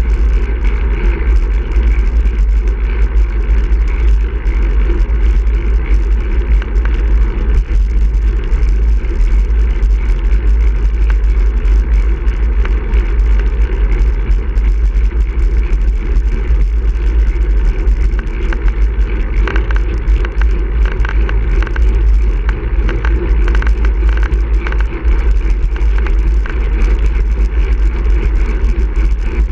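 Wind rumbling steadily across the microphone of a bike-mounted camera on a road bike riding along an asphalt road, with tyre and road noise underneath.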